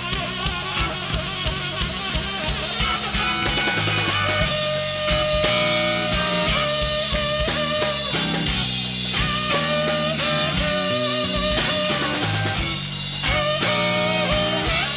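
Live blues band playing an instrumental stretch of a slow blues: an electric guitar leads with held, bending notes over drum kit and bass guitar.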